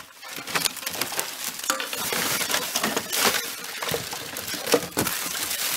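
Plastic bags and cellophane packaging crinkling and rustling as a hand rummages through a cardboard box of trash, with small sharp crackles and a couple of louder snaps about three and five seconds in.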